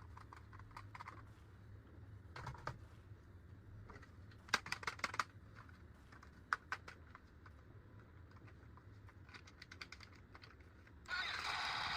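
Close-up clicks and taps of plastic toy pieces and packaging being handled, in short irregular clusters. Near the end a much louder, hissy electronic sound starts suddenly and keeps going.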